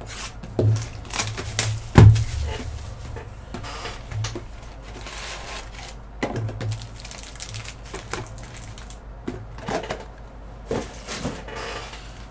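Cardboard trading-card hobby box being opened and its stack of foil card packs handled and set down on a table: a string of clicks, taps and rustles, with one louder thump about two seconds in.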